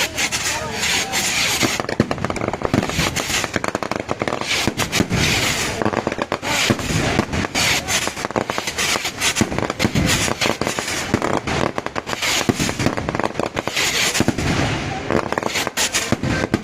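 Fireworks going off in a dense, continuous crackle of rapid bangs, many a second, with stretches of hissing.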